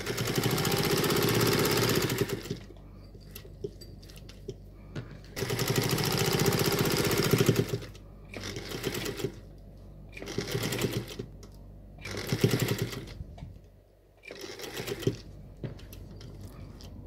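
Vintage black sewing machine stitching a seam through layered craft felt, run in bursts: two long runs of about two seconds each, then several short runs near the end, with pauses between.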